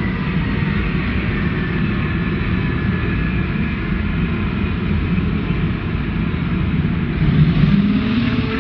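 Dirt Devil vacuum cleaner motor running hard, with a steady rush of air and a high whine that slowly slides down in pitch. Near the end a lower hum comes in and rises.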